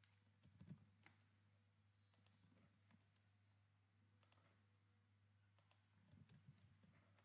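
Faint computer mouse clicks and keyboard keystrokes, a few scattered clicks over near silence.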